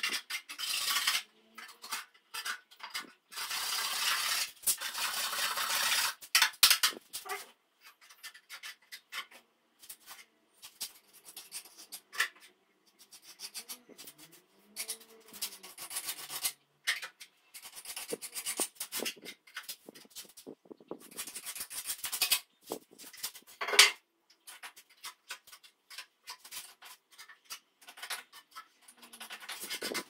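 Hand tool scraping and rubbing a plastered wall in irregular strokes, in bursts. A faint rising-then-falling tone is heard briefly about halfway through.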